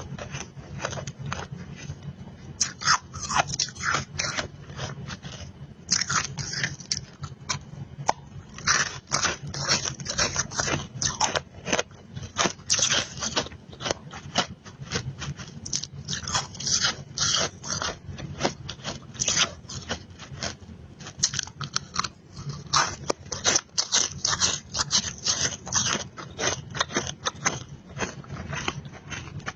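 Close-miked crunching of powdery freezer frost being bitten and chewed: a dense, irregular run of sharp crisp crunches, several a second.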